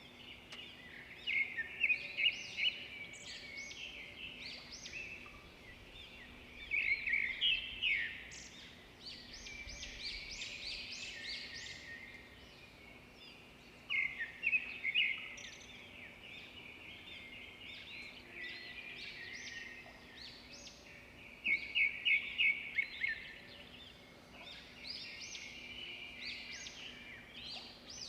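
Songbirds singing: high chirps and trills in loud bursts every few seconds, with softer chirping between.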